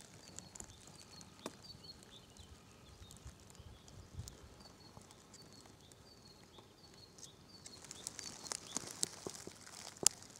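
Faint outdoor ambience: a small bird calling with a run of short, high notes repeated several times a second. From about eight seconds in, dry grass and dead leaves crackle and crunch underfoot, with one sharp snap near the end.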